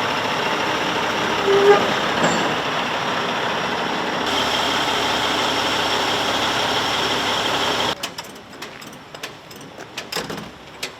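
Heavy diesel machinery engine running steadily, with a couple of short clanks about two seconds in. It cuts off abruptly about eight seconds in, leaving quieter background with scattered clicks.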